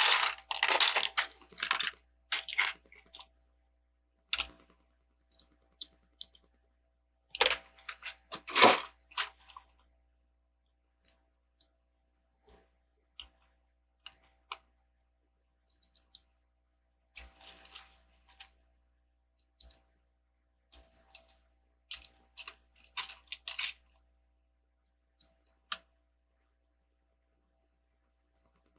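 Small plastic Lego bricks clicking and clattering as loose pieces are sorted through and handled, in scattered bursts of clicks with quiet pauses between, the busiest near the start and again around the middle.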